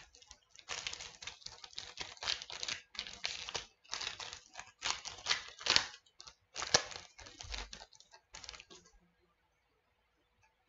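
Trading cards being handled and flicked through in the hands, card stock rustling and clicking against card, possibly with a foil pack wrapper crinkling. It comes in a quick run of short rustles and clicks that stops about nine seconds in.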